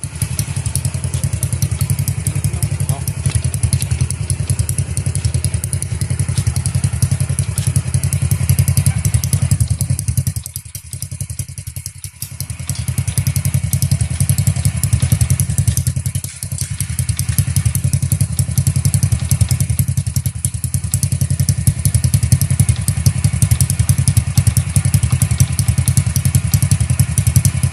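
Honda Wave 100 motorcycle's small single-cylinder four-stroke engine, on its stock bore, running through a modified opened-up exhaust with a loud, low, rapid popping note. It drops off briefly about ten seconds in and again around sixteen seconds, then picks up again.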